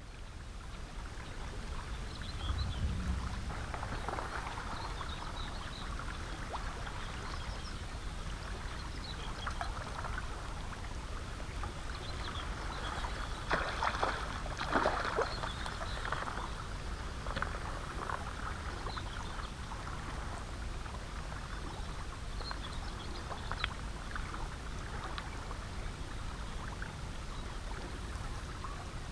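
River water lapping steadily against the rocks of a stone groyne, with a hooked asp splashing and thrashing at the surface around the middle, the loudest moment.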